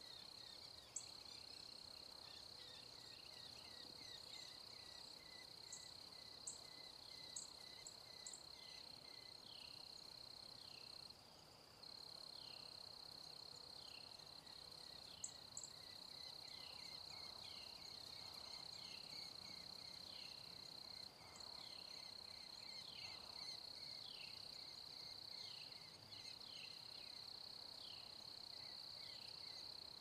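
Faint steady high-pitched insect drone, with a run of short falling chirps about once a second behind it.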